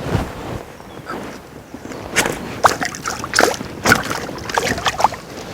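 Water splashing and sloshing in a run of short, irregular splashes, typical of a freshly hooked fish thrashing at the surface as it is landed.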